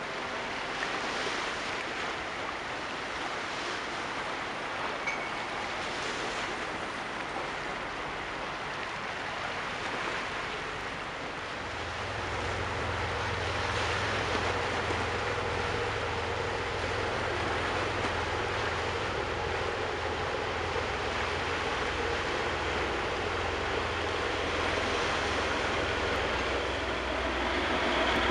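Steady wash of sea waves with wind noise. A low, steady engine drone comes in about halfway through and continues under the water sound.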